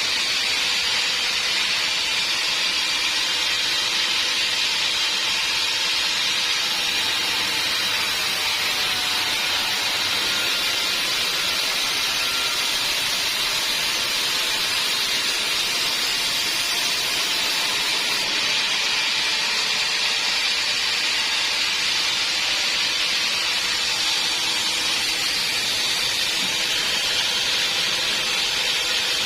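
Sawmill band saw cutting through a log: a steady, even hiss of the blade in the wood, with a faint hum underneath.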